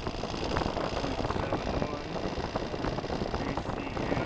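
Condenser fan motor of a Kelvinator ice cream cake case running steadily, its fan blade pushing a rush of air, with a few light clicks over it. The blade is too heavy for the motor, which is drawing more than its rated current.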